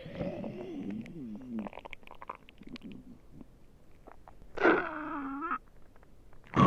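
A human stomach growling: a wavering, gliding rumble in the first second or two, then small gurgles and clicks, then a louder growl about five seconds in whose pitch bends down and back up over about a second.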